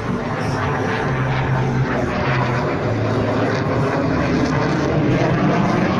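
Engine noise of a military airplane flying an air-show display, loud and steady, growing slightly louder in the second half.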